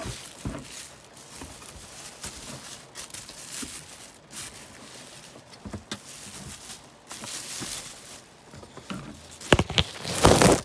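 Rustling and knocking of packaging being handled as a boxed car vacuum cleaner is unpacked, with a few louder knocks near the end.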